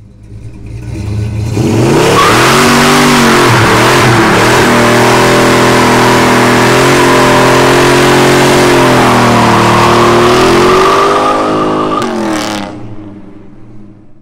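Muscle car doing a burnout: the engine revs up and is held at high revs while the rear tyres spin and screech on the pavement, then the revs drop and fade away near the end.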